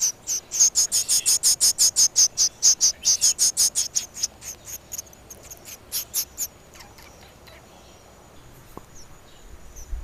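A fledgling bird giving rapid, high-pitched begging chirps, about six a second, the hunger call of a young bird wanting to be fed. The chirps grow fainter and sparser after about four seconds and stop about six and a half seconds in.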